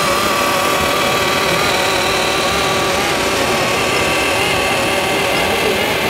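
Radio-controlled scale model of a Liebherr mobile crane truck driving slowly with a trailer in tow: a steady engine-like running sound with several held tones.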